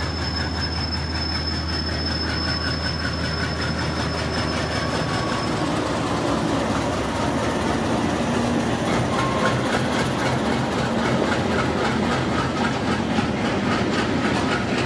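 A freight train loaded with railway sleepers rolling past, its wagon wheels clattering over the rail joints in a steady rhythm. A low hum and a thin, high, steady wheel squeal stop about six seconds in, after which the clatter grows a little louder.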